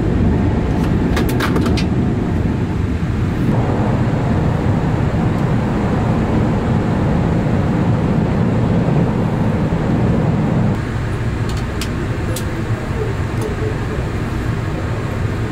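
Cabin noise inside a Taiwan Railway EMU3000 electric multiple unit: a steady rumble as the train runs into a station. It drops a little quieter about eleven seconds in as the train comes to a stop, with a few faint clicks.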